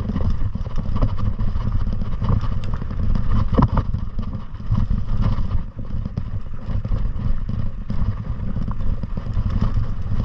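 Wind rumble on the microphone with scattered clatter and rattling while riding downhill over rough, rocky ground.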